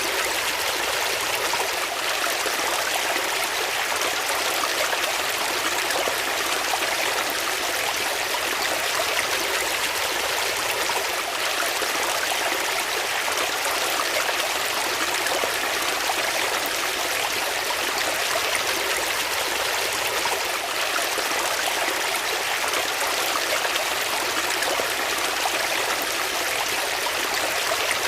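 Water flowing steadily in a stream, an even rushing and trickling that does not change.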